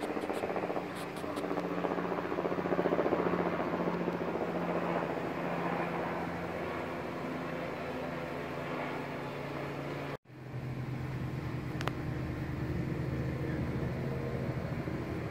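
Helicopter's steady drone, several low humming pitches that drift slightly. The sound cuts out for an instant about ten seconds in.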